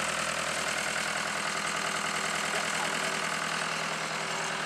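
Ford Transit van's diesel engine idling steadily.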